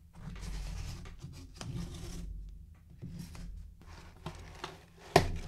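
Packing tape on a cardboard mailer box being cut and torn open, in several scraping, rasping strokes, then a sharp knock near the end as the tight box comes open.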